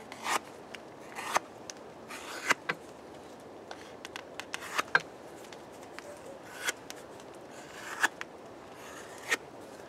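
Steel dagger blade slicing through thick 5.5 mm leather in a series of short, irregular scraping cuts, about one a second. The blade's thick chisel-like grind cuts the leather poorly.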